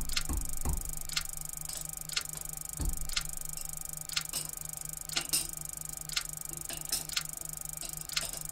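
Clock ticking about once a second, with a few dull knocks near the start and about three seconds in, over a steady low hum.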